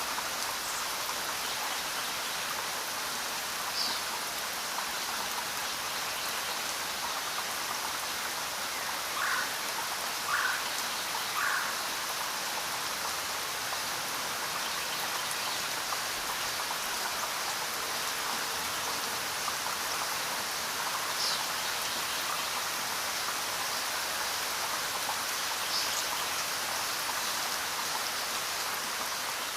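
Steady rain falling, an even hiss. Three short, slightly louder sounds come about a second apart midway through, and a few faint high ones stand out here and there.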